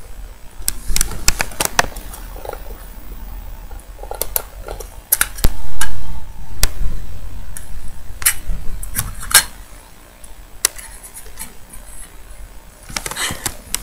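Small plastic treat pot clicking, knocking and rattling irregularly as a Syrian hamster pushes and pries its lid open, with a louder muffled bump about six seconds in.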